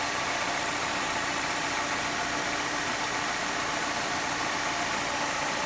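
Car engine idling steadily with a constant hiss over it, which the owner takes for refrigerant escaping through a hole in the AC line.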